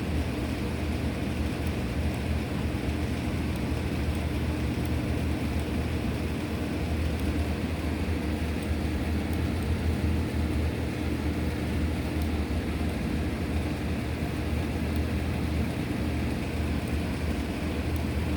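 CNC router running steadily, a continuous low, humming machine drone that does not change through the stretch.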